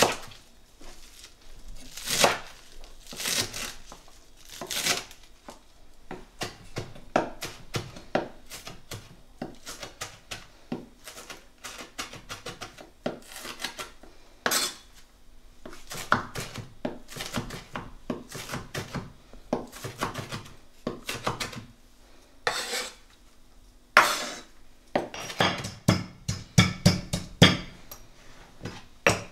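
A large kitchen knife chopping fresh coriander on a wooden chopping board in irregular knocks. Near the end, a pestle pounds rapidly and evenly in a stone mortar, crushing garlic into a paste.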